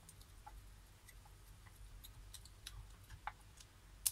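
Faint, irregular small clicks and ticks of a screwdriver turning the clamp screw of a plastic screw-terminal connector block down onto a wire, with a sharper click near the end.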